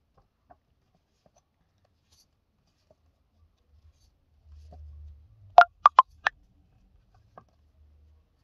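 Handling of a stack of printed photographs: quiet shuffling, then four sharp taps in quick succession a little past halfway.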